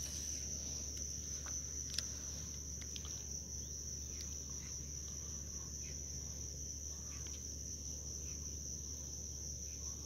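Steady, unbroken high-pitched trill of insects, with a single faint click about two seconds in.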